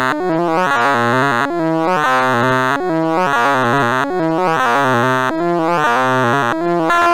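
Electronic beeps from the Sound of Sorting sorting-algorithm sonification: rapid stepped synthesizer tones whose pitch follows the array values being accessed, in repeating sweeps about every second and a quarter. Near the end the tones turn into a denser jumble.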